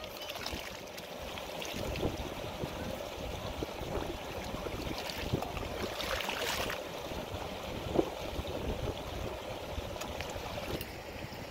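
Wind buffeting the microphone in an uneven rush, with a few light knocks from hands working at a ledge, about three of them spread through.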